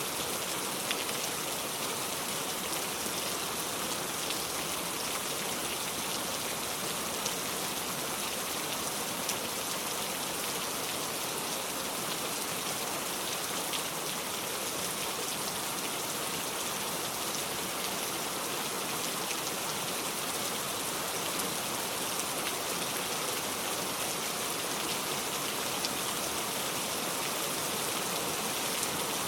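Heavy rain falling steadily, a dense even hiss with scattered louder drop ticks.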